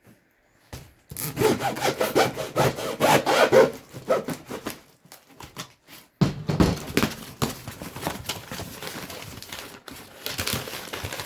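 A blade sawing through the tape and cardboard of a shipping box in quick back-and-forth scraping strokes, in two main bouts with a lull between.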